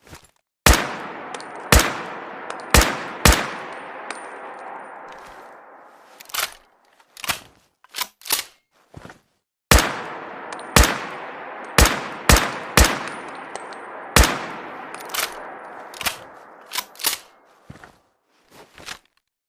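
Rifle sound effect: single shots fired at irregular intervals of roughly half a second to a second, each with a long echoing tail, in two runs of shots. Fainter short metallic clicks fall between the runs and near the end.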